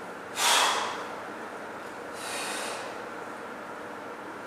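A man breathing hard with exertion while pedalling an exercise bike: a loud, sharp exhale, like a snort, about half a second in, then a softer breath around two seconds in.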